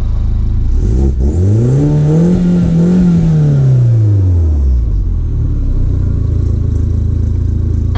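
R56 Mini Cooper S's turbocharged 1.6-litre four-cylinder, running through a freshly fitted catless downpipe, idling and then revved once. About a second in, the pitch climbs smoothly, peaks around the middle, and falls back to a steady idle by about five seconds.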